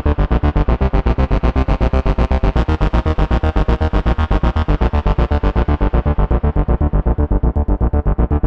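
Moog Subsequent 37 analog synthesizer playing a fast, even pulse of repeated notes, about eight a second, with a heavy bass. About six seconds in, its filter closes and the tone darkens.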